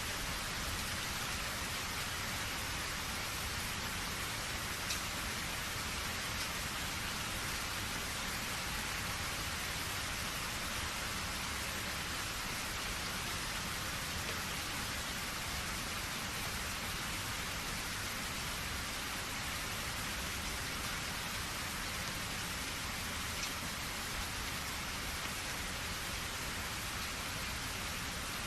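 Steady rain falling: an even, unbroken hiss with a few single drop ticks, the clearest about five seconds in.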